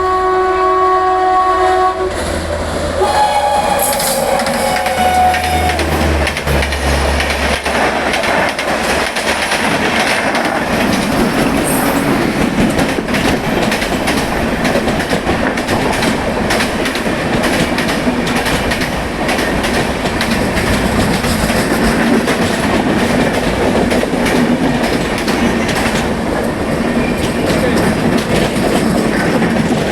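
Indian Railways locomotive's twin-tone horn sounding and cutting off about two seconds in. A fainter horn tone then slides slightly down in pitch, and the train runs past with steady wheel clatter over the rail joints.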